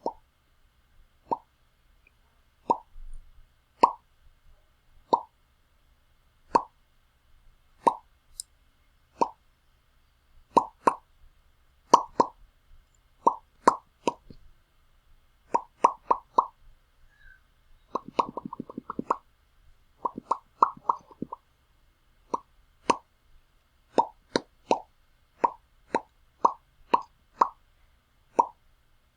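Lip pops made with the mouth: short sharp pops, singly and in quick pairs and triplets, roughly a second apart, all at about the same pitch. About two-thirds of the way through comes a quick rapid run of pops.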